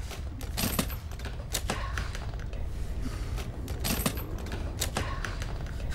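A few sharp, irregular clicks and knocks, some in quick pairs, over a steady low hum.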